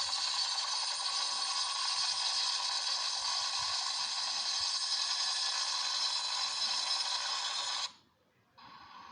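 Helicopter sound effect: a steady, dense mechanical whirr that cuts off suddenly about eight seconds in. After a brief silence a quieter sound starts just before the end.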